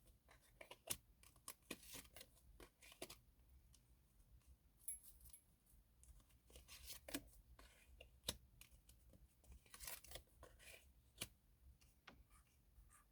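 Faint scattered clicks and rustles of tarot cards being handled and laid down.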